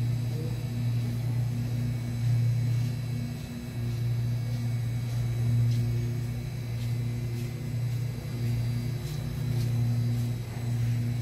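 Steady low electrical hum of refrigerated glass-door freezer cases, swelling and easing a little in loudness, with a few faint clicks.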